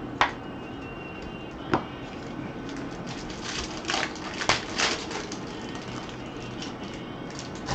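Trading cards being handled: two sharp clicks in the first two seconds, then a run of quick rustles and clicks around the middle, over a faint steady background hum.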